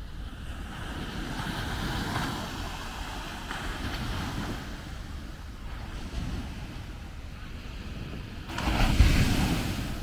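Small ocean waves breaking and washing up a sandy beach, a steady surf hiss that swells and eases. Near the end a sudden, louder rush with a deep rumble, like wind buffeting the microphone.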